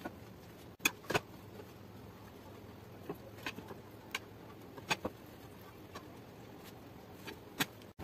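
Food-handling sounds: a few light, scattered taps and clicks as breaded chicken drumsticks are dipped in beaten egg and rolled in breadcrumbs in ceramic bowls, over a low steady hiss.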